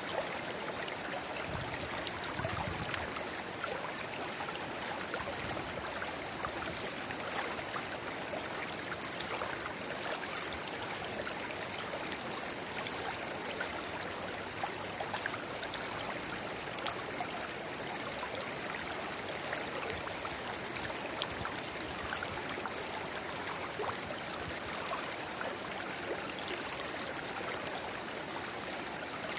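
River water running steadily, with a small spring-fed runnel splashing and trickling into the main current: an even rush of flowing water flecked with many small splashes and gurgles.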